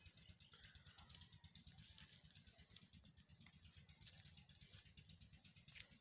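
Near silence: a faint low rumble with scattered soft ticks and rustles, as of movement through leaf litter and undergrowth.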